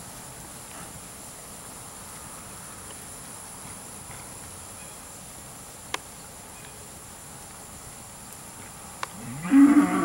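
A beef steer moos once near the end, a short call that bends in pitch, over a faint steady background with a couple of small clicks.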